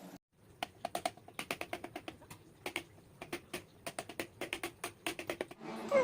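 A quick, irregular run of light, sharp clicks and taps, several a second, ending shortly before the close.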